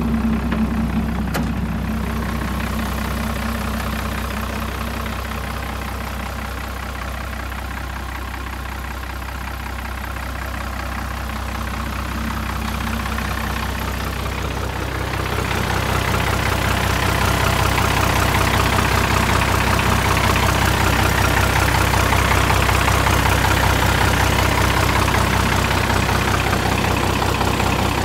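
Hino truck's diesel engine idling steadily, growing louder about halfway through.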